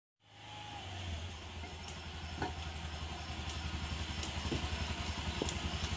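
Small motor scooter engine idling, a steady low pulsing hum that slowly grows louder, with a few faint ticks.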